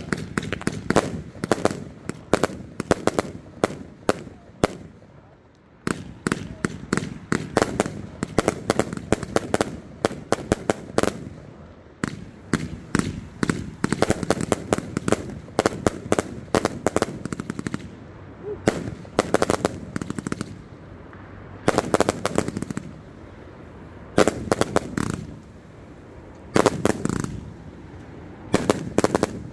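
Rowdy Dragon 99-shot consumer firework cake firing: rapid sharp shots and bursts, many a second, in volleys. Toward the end the volleys grow shorter, with brief pauses between them.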